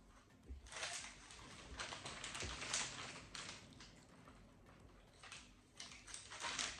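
Crunchy lentil puff snacks being chewed close to the microphone: crisp crackling crunches in two spells, one about a second in and another near the end.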